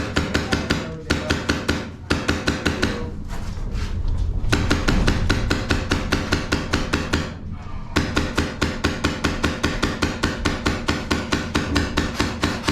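Airsoft gun firing long bursts of rapid shots, about six a second, with short breaks between bursts.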